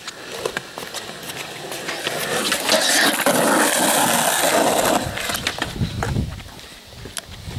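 Skateboard wheels rolling over concrete. The rush swells to its loudest in the middle and then falls away, with scattered sharp clacks from the boards.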